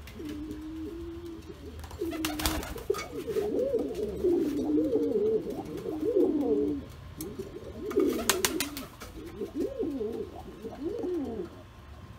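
Pouter pigeons cooing: a low, wavering, warbling coo that goes on almost without a break. Two brief sharp noises cut in, about two seconds in and again about eight seconds in.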